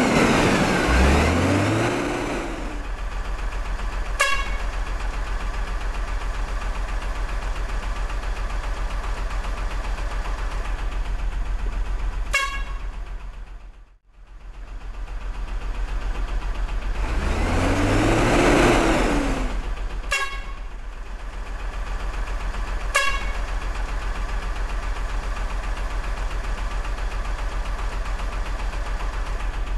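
Truck engine sound effect running steadily, with a rising-and-falling rev near the start and again about eighteen seconds in. There are short horn toots about four, twelve, twenty and twenty-three seconds in. The sound fades out almost to nothing about halfway through and then starts over.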